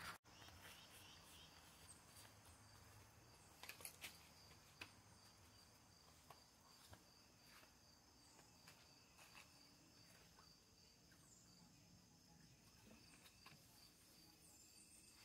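Near silence, with faint, steady insect chirring and a few faint clicks about four seconds in.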